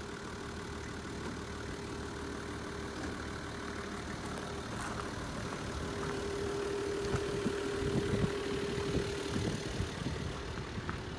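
Nissan Civilian bus's TD42 4.2-litre straight-six diesel idling steadily, growing somewhat louder a little past halfway.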